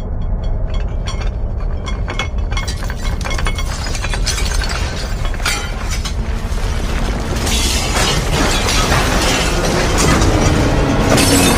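Earthquake sound effect: a deep, continuous rumble with rattling and shattering debris. The clatter begins about half a second in and grows heavier and louder through the second half.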